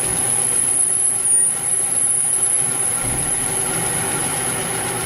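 Metal lathe running while its cutting tool takes the final facing pass across the end of an aluminum workpiece: a steady machine noise with a thin, steady high whine over it.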